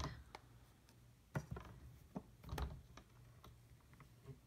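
A few light, scattered plastic taps and clicks as a clear stamp on a Stamparatus stamp-positioning tool is dabbed with a Stampin' Up! ink pad and the pad and tool are handled. The loudest tap comes about a second and a half in.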